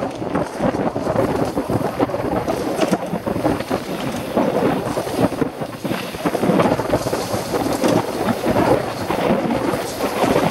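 Mountain bike descending a dirt trail at speed, heard from a helmet-mounted camera: a loud, steady rumble and rattle of tyres and bike over dirt and roots, mixed with wind buffeting the microphone.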